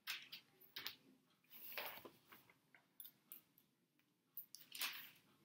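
Bible pages being turned and flipped by hand: a series of short papery rustles and swishes, the loudest a little before the end.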